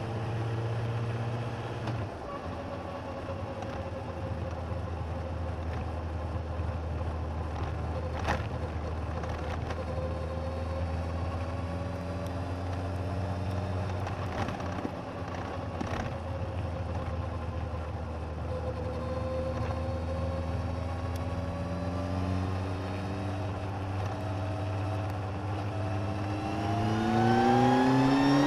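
Suzuki GSX1250FA's inline-four engine running at a steady cruise, heard from under the seat, its pitch drifting gently with a couple of sharp clicks along the way. Near the end it revs up sharply as the bike accelerates.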